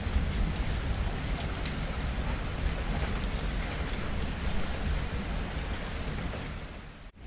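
Steady heavy rain with a low rumble underneath. The sound fades down about a second before the end, dips almost to silence for a moment, and comes back.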